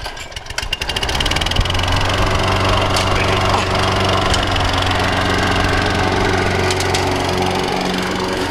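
Craftsman walk-behind lawn mower's small single-cylinder engine starting up, catching about a second in and then running steadily.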